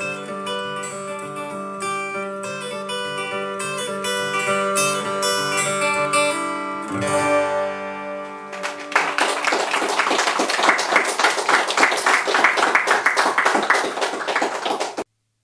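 Acoustic guitar played solo: picked notes ringing over one another, then from about nine seconds in a fast, even strum, which cuts off abruptly near the end.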